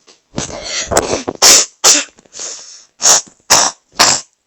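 A person's voice making a run of loud, harsh, breathy bursts: a longer stretch first, then short bursts about twice a second.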